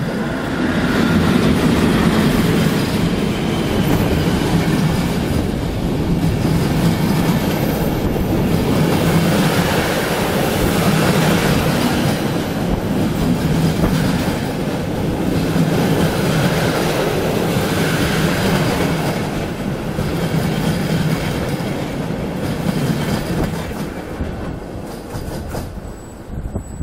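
A passenger train hauled by a PKP class EP08 electric locomotive running past close on the next track, heard from aboard a moving train: a loud, dense rolling rumble of wheels on rail that swells and eases every couple of seconds. It falls off sharply near the end as the last coach goes by.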